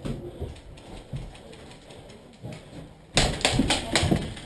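Footsteps and gear thumping as a player moves. About three seconds in, an airsoft gun starts firing a rapid string of sharp shots, about five a second.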